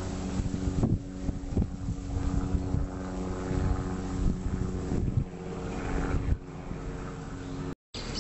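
Helicopter passing unseen overhead: a steady, droning engine-and-rotor hum over a fluttering low rumble, with wind on the microphone. The sound cuts out abruptly for a moment near the end.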